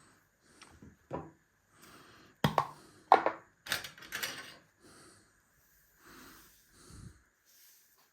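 A series of short knocks and clatters, the loudest coming in a quick run in the middle.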